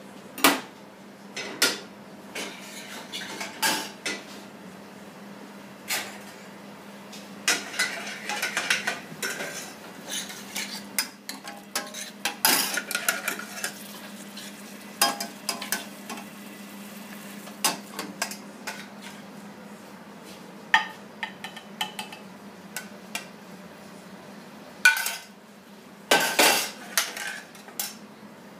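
Metal kitchenware clattering: tongs, saucepans and utensils knocked and scraped on a stainless-steel counter and gas stove, in many irregular sharp knocks, with stirring in a saucepan. A steady low hum runs underneath.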